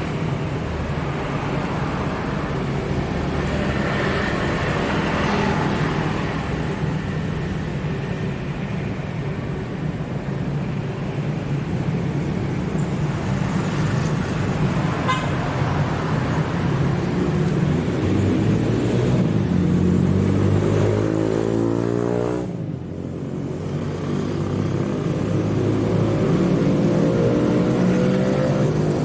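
Road traffic with a motor vehicle's engine running close by. In the second half its pitch climbs, breaks off sharply, then climbs again, as an engine does when accelerating through a gear change.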